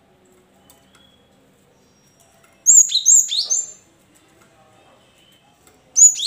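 Cinereous tit (gelatik batu) calling: a quick run of sharp, high notes, each dropping in pitch, about two and a half seconds in, and another run starting just before the end.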